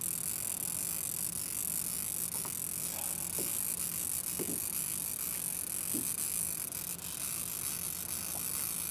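Fishing reel being cranked slowly to bring up line with something hooked on it, a steady mechanical whir with a few faint short squeaks.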